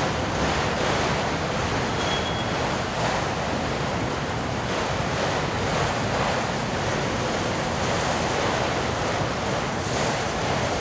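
Autorack freight cars rolling past at close range: a steady rushing noise of steel wheels on the rails.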